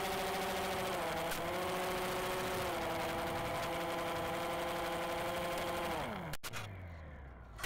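The motor and propeller of a homemade RC ground-effect plane running, heard from a camera on the craft with air rushing past: a steady hum that holds its pitch with small steps in throttle. About six seconds in the pitch winds down as the throttle is cut.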